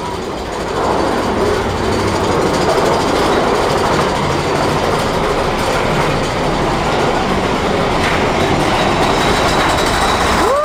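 Roller coaster mine train running along its track: a loud, steady rumble and rattle of the cars' wheels on the rails, growing louder about a second in.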